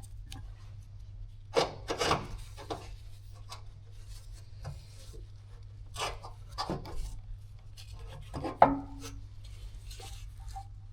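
Irregular scrapes and knocks of hand tools and metal parts being handled during work on a generator, over a steady low hum.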